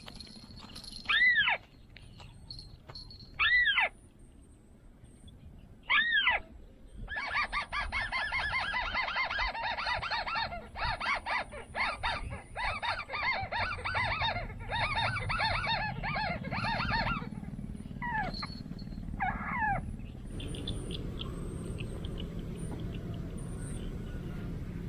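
Bird calls: a single arched call repeated about every two and a half seconds, then a long run of fast chattering notes for about ten seconds, then two more calls, fading to faint notes over a low rumble near the end.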